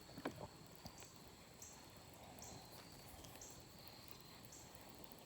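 Quiet creekside ambience: insects chirping, a short high buzz roughly once a second, over a faint steady high drone.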